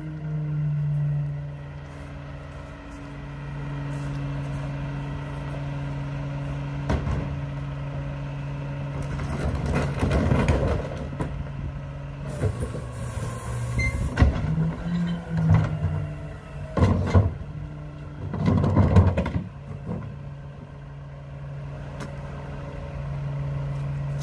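Mack rear-loader garbage truck's diesel engine idling steadily, with loud clattering and banging about ten seconds in and again several times a few seconds later as a wheeled plastic trash cart is tipped and emptied into the rear hopper.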